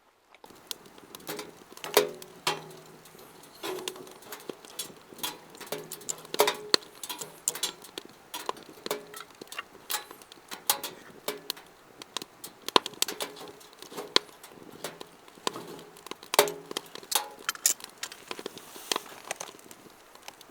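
Wood fire crackling in a fire pit: a steady run of sharp pops and crackles, several a second.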